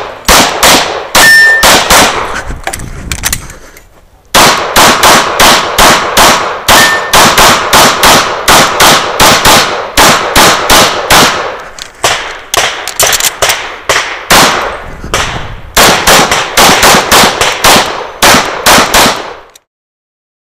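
Semi-automatic pistol fired in rapid strings at close range, about three shots a second, with short pauses between strings; the shooting stops shortly before the end.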